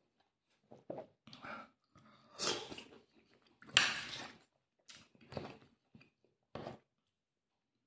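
A person chewing pieces of a juicy orange close to the microphone: a string of irregular short wet bursts, the loudest about four seconds in.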